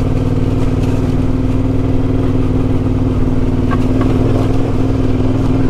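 Yamaha Ténéré 700's parallel-twin engine running at steady, unchanging revs as the bike rides along a dirt track.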